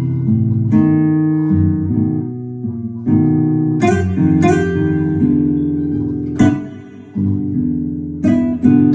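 Digital keyboard playing a slow ballad: sustained chords struck every second or two, each ringing out and fading before the next.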